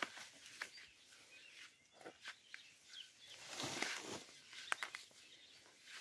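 Faint footsteps and rustling of leaves and clothing as people walk along a narrow dirt path through brush, with scattered light clicks and a louder rustle about four seconds in.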